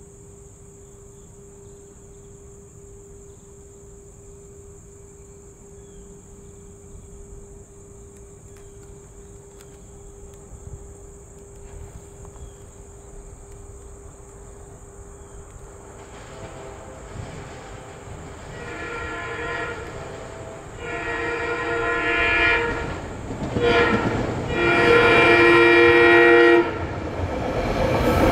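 SEPTA train's horn sounding the grade-crossing signal as it approaches: two long blasts, a short one and a final long one, each louder than the last. Under it the crossing bell rings in a steady repeating pulse.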